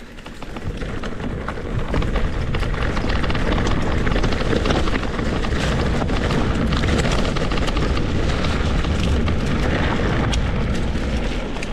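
Mountain bike ridden fast on a trail: wind rushing over the camera microphone with a heavy low rumble, and many small knocks and rattles from tyres and frame on rough ground. It swells over the first two seconds, then stays steady and loud.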